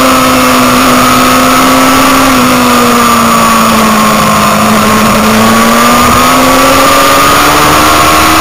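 Motorcycle engine running hard under the onboard camera, its note dipping slightly through the bend and then climbing steadily as the bike accelerates out. A loud, steady rush of wind noise lies under it.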